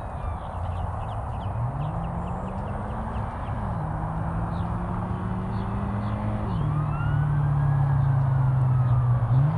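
Toyota GR86's 2.4-litre flat-four with an aftermarket exhaust, accelerating through the gears: the engine note climbs, drops at an upshift, climbs again and drops at a second upshift, then holds steady before stepping up near the end. The car grows louder as it comes closer.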